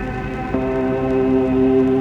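Ambient drone music from layered synthesizers: sustained, overlapping tones held steady, with a new, louder chord swelling in about half a second in.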